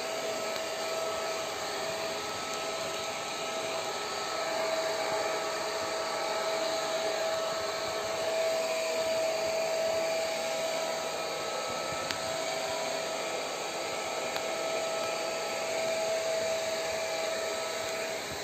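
Hand-held hair dryer blowing steadily, with a faint motor whine, drying a boxer dog's coat after a bath. It gets a little louder about four seconds in and eases back near the end.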